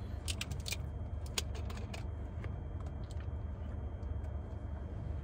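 A plastic soda bottle's screw cap is twisted open and handled, giving a few sharp clicks in the first couple of seconds. A steady low hum fills the car cabin underneath.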